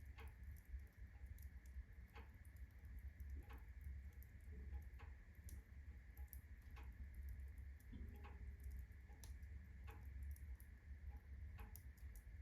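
Birch-log fire in a fireplace crackling, with sharp pops at irregular intervals over a steady low rush of the flames.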